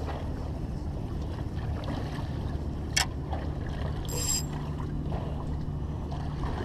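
Wind rumbling on the microphone over choppy bay water, with a faint steady low hum. A sharp click about three seconds in and a brief high metallic ring about a second later.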